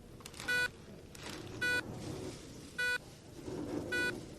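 Hospital patient monitor beeping steadily, one short pitched beep about every second, four in all, over faint background murmur.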